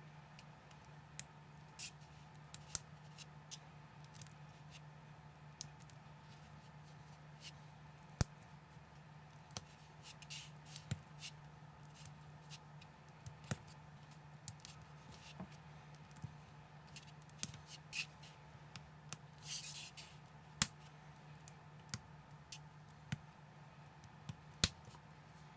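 Small plastic building bricks clicking and snapping as they are pressed together and handled, in irregular sharp clicks with a brief rustle near the end, over a steady low hum.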